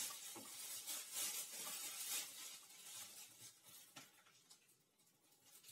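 Spoon stirring corn sticks in a bowl: a crisp, crackly rustling that dies away about four seconds in, with a light click as it stops.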